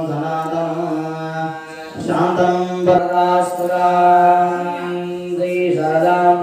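A man chanting Hindu puja mantras in long, drawn-out tones, with a short pause for breath about two seconds in.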